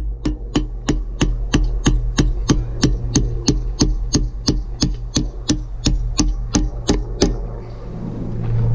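Hammer blows on a steel drift, driving the pivot pin out of a mini excavator's hydraulic ram. The blows are sharp metallic strikes at an even pace of about three a second, stopping about seven seconds in.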